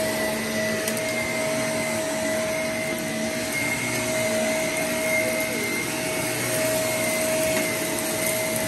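Shark upright vacuum cleaner running over carpet, a steady whine over a steady rush of air.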